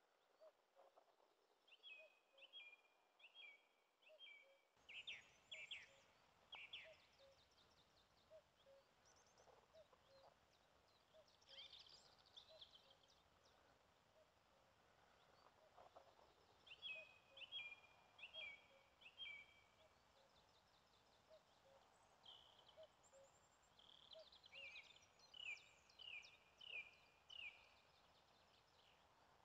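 Quiet songbird song: one bird repeats a phrase of four or five quick, evenly spaced notes three times, with other brief chirps in between.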